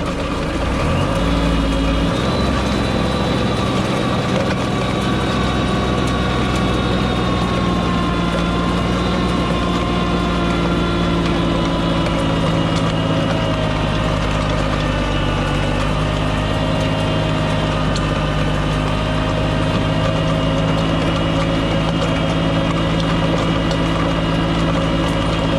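Kubota LX2610 compact tractor's three-cylinder diesel engine running steadily at working revs, picking up speed over the first couple of seconds and then holding.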